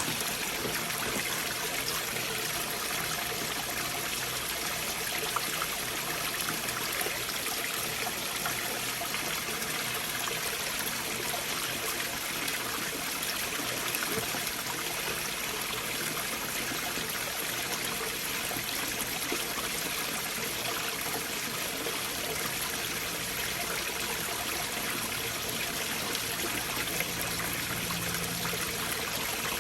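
A stream flowing beneath large boulders, a steady, unbroken rush of running water.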